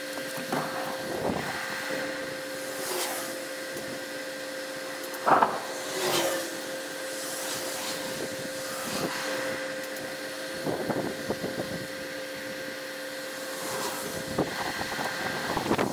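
Gusts of wind buffeting the microphone as a thunderstorm approaches, over a steady whirring hum that stops near the end. There is one short sharp sound about five seconds in.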